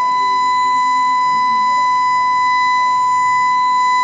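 Sonotron therapy device running, giving off a steady, unbroken high-pitched electronic tone.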